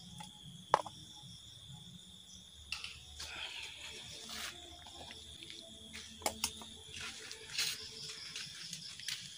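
Steady high-pitched chirring of night insects, likely crickets, with a few sharp clicks and knocks from handling and steps. The loudest click comes about a second in.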